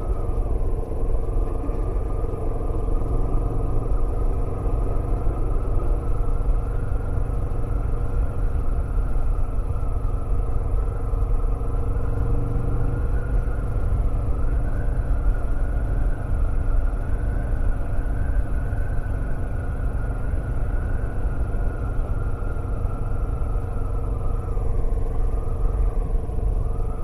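Kawasaki Vulcan S's parallel-twin engine running steadily at a cruise, under a constant low rumble of wind and road noise.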